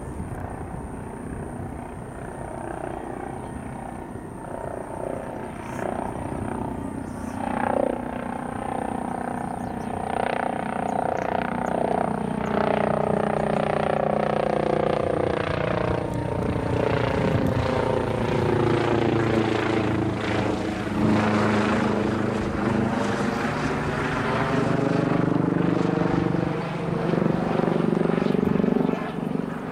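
Helicopter flying overhead, its rotor and engine sound growing louder about a dozen seconds in and staying loud as it passes close above.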